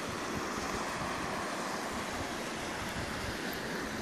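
Rapids of a partly frozen mountain river rushing steadily over and between boulders.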